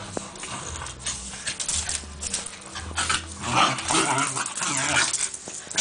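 Two terriers, a Scottish terrier among them, play-fighting on a dog bed: scuffling and scratching, with panting and whining. The dog sounds get louder about three and a half seconds in, as they scramble up and tussle.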